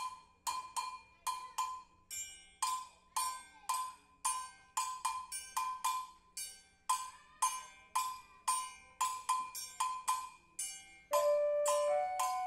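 Music: a sharply struck, ringing percussion instrument playing an even pattern of about two to three strikes a second. Held notes come in near the end.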